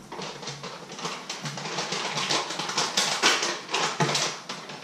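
Rapid, irregular light taps and scrapes of kitchen clean-up, as loose bits are brushed and gathered off the counter.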